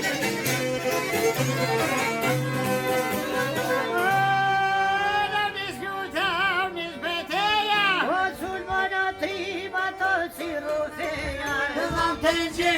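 Albanian folk music with violin: a rhythmic accompaniment over a pulsing low note, then about four seconds in a long, ornamented melody line with wide wavering turns takes over.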